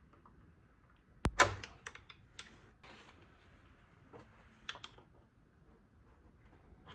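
Hand tools clicking and tapping on metal shifter linkage while a retaining ring and pin are worked off with a screwdriver: a sharp knock about a second in, then a quick run of lighter clicks, and a few more near the end.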